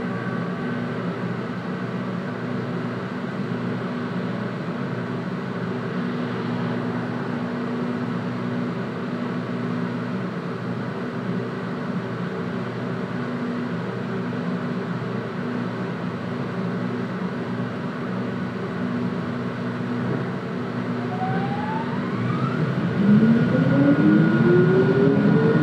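Inside a Hitachi Rail tram of the GTT 8000 series: a steady low hum while it stands. Near the end its electric traction drive starts up, with several whines rising in pitch and one settling into a held high tone, and the sound grows louder as the tram pulls away.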